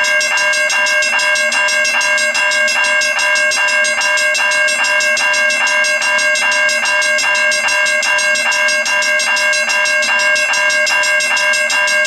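A cast iron Griswold mechanical railroad crossing bell and a General Electric electronic crossing bell ringing together: a rapid, steady clanging of about four strokes a second over a continuous ringing tone.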